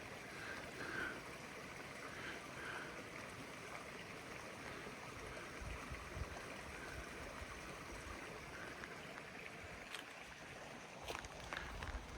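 Faint, steady trickle and rush of a small forest creek, with a few faint taps near the end.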